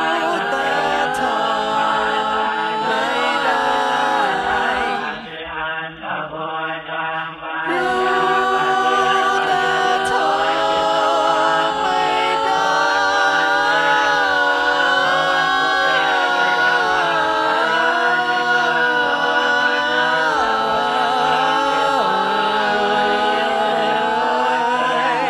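Layered a cappella voices singing long, held chant-like notes in harmony, moving slowly between chords, with no clear words. The voices thin and drop for a couple of seconds about five seconds in.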